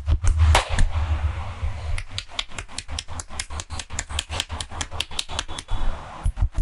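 Rapid, rhythmic percussive massage strokes: hands slapping and tapping on a person's body at about five or six strokes a second, each a sharp smack with a dull thump beneath it.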